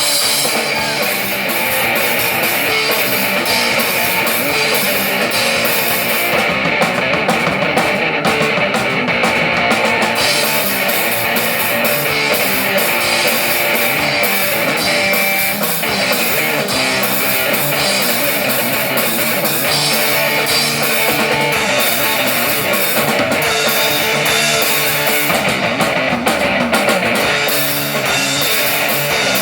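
Rock band playing live: electric guitar and drum kit, loud and continuous.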